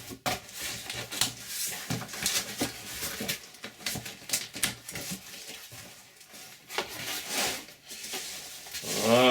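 Irregular clicks, knocks and rustles of a cardboard parcel and its packing being handled and opened.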